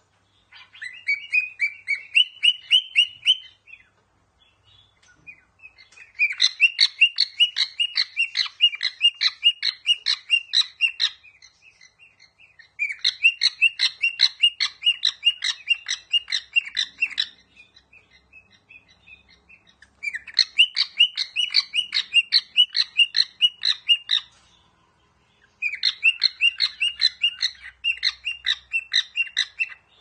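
Male cockatiel chirping in rapid repeated bouts of about five chirps a second, each bout several seconds long, five bouts in all with short pauses between.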